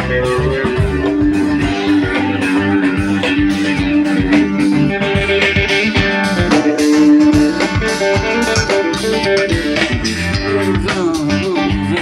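Live rock band playing an instrumental break: electric guitars over bass guitar and drums, loud through the stage speakers.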